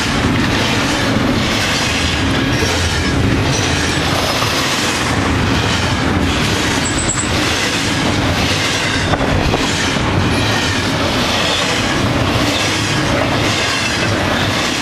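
Double-stack intermodal well cars of a fast freight train rolling past close by: a loud, steady rumble of steel wheels on rail with a repeated clatter as wheelsets pass, and a brief high squeal about halfway through.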